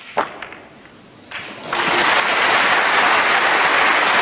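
Sharp clicks of snooker balls right at the start, then a crowd's applause that builds about a second and a half in and carries on steadily.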